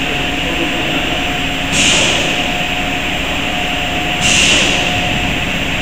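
Steady machinery noise on a PCB assembly line, with a faint steady whine, broken twice by short hisses, about two and a half seconds apart.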